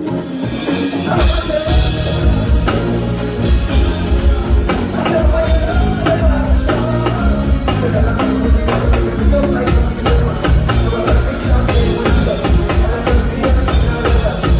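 Live band playing a song: drum kit keeping a steady beat over heavy bass, with a sung or lead melody on top.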